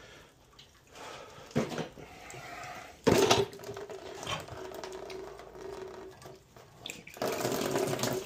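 A sharp metallic knock about three seconds in, then water hissing and rushing out of hydronic heating pipework as a zone valve is worked loose with pliers; a heavier rush of water starts near the end.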